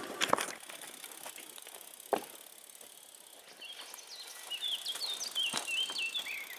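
A bicycle being pushed past by hand over a sandy forest track, with a sharp click about two seconds in and another near the end. From about halfway a small bird sings a run of short, high chirping notes.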